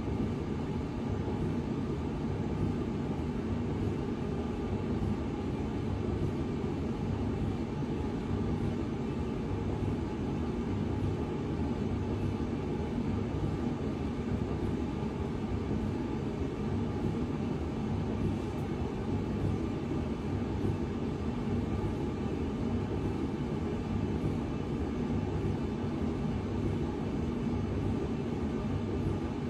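A machine running steadily through its test cycle, a continuous low drone that holds an even level throughout.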